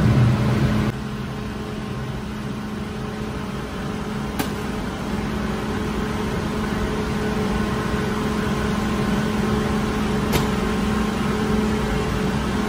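Steady mechanical hum and rushing noise of running bakery equipment, with a sharp click about a third of the way in and another near the end.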